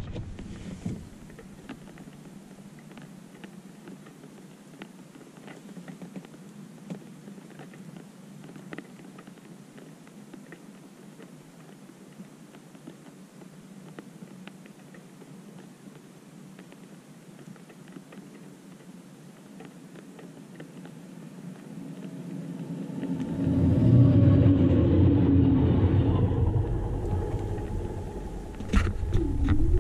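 A faint steady hum, then a train of LNER Class 91 electric locomotives passing over the level crossing: a low rumble that builds about three-quarters of the way through, is loudest for a few seconds, and eases off, with a couple of sharp knocks near the end.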